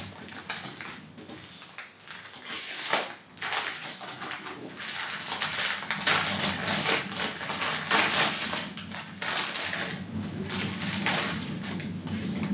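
Thin clear plastic packaging bag crinkling and rustling in uneven bursts as hands tear it open and pull out a folded cotton-blend pillow protector.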